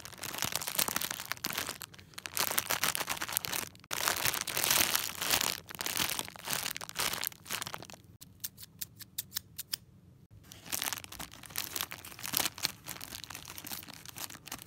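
A plastic candy bag of hard candies being squeezed and rubbed by hand, crinkling and rustling loudly. Partway through it goes quiet apart for a couple of seconds of quick small ticks. Near the end come sharper crinkles as scissors cut into the bag.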